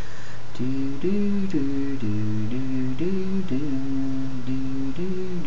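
A person humming a tune, a melody of held notes that step up and down about every half second, starting about half a second in.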